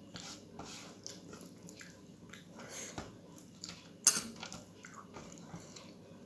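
Close-up chewing and wet mouth sounds of someone eating a meal of rice, dal and roti, with a sharp click about four seconds in.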